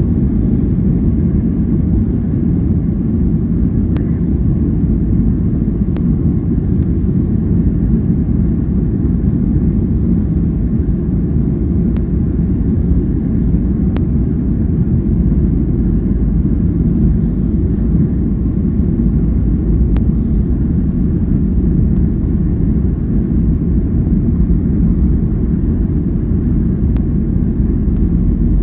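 Cabin noise inside a Boeing 737-800 taxiing: a steady, low rumble from its CFM56-7B engines at taxi power and its wheels rolling over the taxiway, heard from a window seat over the wing.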